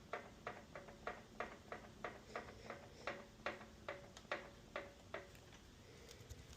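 Scag 36-inch commercial walk-behind mower's four-stroke engine giving a regular knock, about two to three sharp knocks a second, fading out about five seconds in. The mechanic suspects a connecting rod; the knock was traced to the valve lifters.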